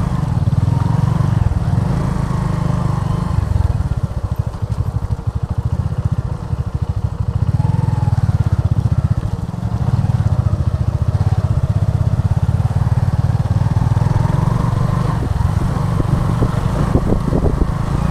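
Motorcycle engine running as the bike rides along a rough dirt road, a steady low rumble that dips briefly twice.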